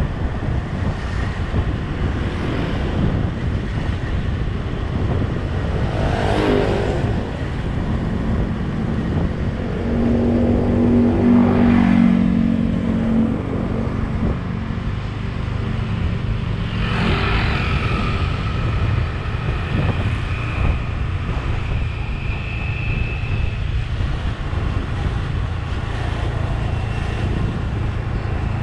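Steady wind and road noise from a vehicle driving along a street. Another vehicle passes about six seconds in, an engine revs up for a few seconds near the middle, and a thin high tone is heard for several seconds after that.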